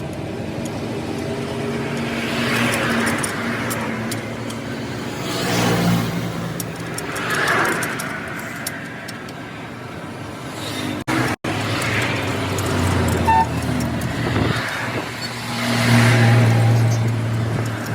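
Road traffic: several vehicles pass one after another over a steady engine hum, each swelling and fading.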